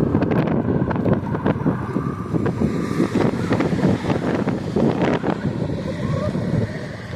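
Low rumble of a vehicle moving, with wind buffeting the microphone and scattered short knocks.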